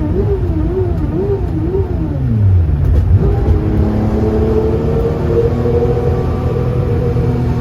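Porsche 2.7 RS-spec air-cooled flat-six running with a whirring noise whose cause the owner is trying to find. The pitch wobbles at first, drops about two seconds in as the revs fall, then climbs and holds steady.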